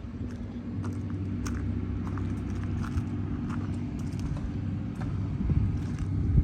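New Holland B95 loader backhoe's diesel engine running at a steady idle, with scattered light clicks over it; the low rumble swells louder near the end.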